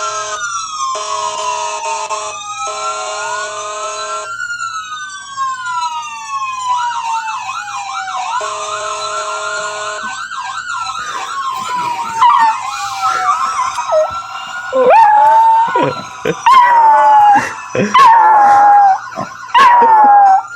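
Police siren wailing in rising and falling sweeps, broken by several short steady horn blasts and a fast warbling stretch. From about two-thirds in, a puppy howls along, louder than the siren, in about five drawn-out howls that each fall in pitch.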